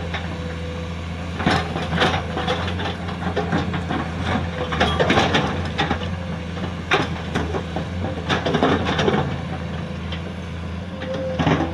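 Komatsu PC210 hydraulic excavator at work: its diesel engine runs steadily while irregular knocks, clanks and crunches come from the working machine, loudest around two, five and seven seconds in.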